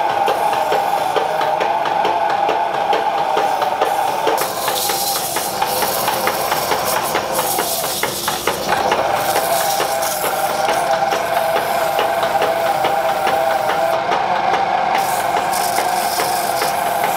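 Dust collector running with a steady whine that dips in pitch briefly about halfway through, over the rubbing of sandpaper on wood spinning on a foot-powered treadle lathe.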